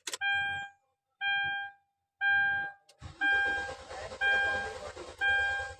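A dashboard warning chime rings about once a second, six times. About three seconds in, the starter cranks the Hyundai H-1's petrol engine with a steady churning noise under the chimes and it does not catch promptly. This is the hard start that goes with camshaft position sensor code P0340, traced to the camshaft sensor being left unplugged.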